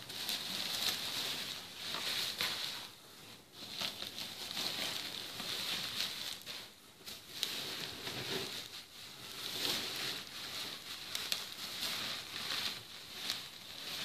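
Bubble wrap rustling and crinkling as hands rummage through it in a cardboard box, a busy crackle of small clicks that swells and eases every second or two.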